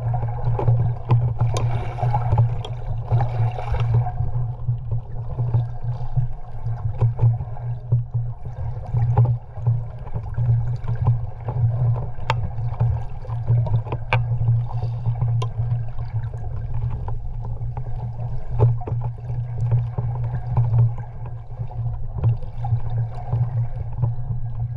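Muffled underwater sound from a camera held just below the sea surface: a steady low hum, with water sloshing and scattered sharp clicks. There is a brief rush of hissing water about two seconds in.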